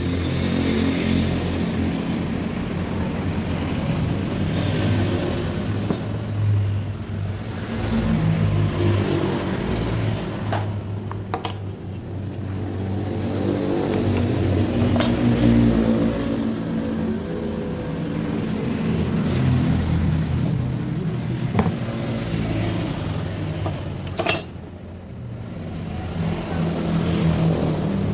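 A motor running with a steady low hum that swells and eases, broken by a few sharp clicks.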